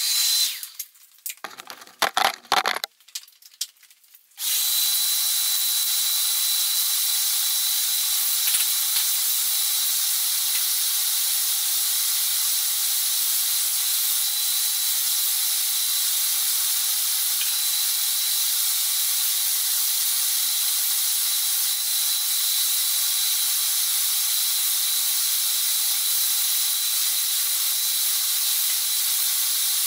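A workshop vacuum cleaner runs steadily as its floor nozzle is drawn over a concrete floor, a even hiss with a thin high whine on top. It comes in about four seconds in, after a few short clatters over near quiet.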